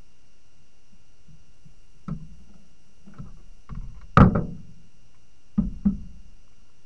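Paddle strokes knocking against the hull of a canoe or kayak: about six dull thuds, the loudest and sharpest about four seconds in, and two close together near the end.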